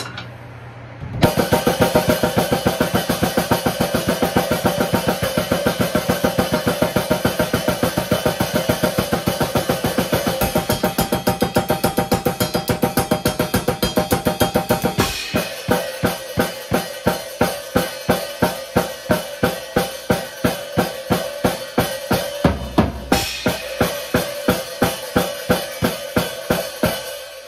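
Drum kit being played: a busy, steady beat with cymbals ringing starts about a second in. About halfway it changes to a sparser, even beat of roughly two to three hits a second with less cymbal, and the cymbal wash comes back near the end.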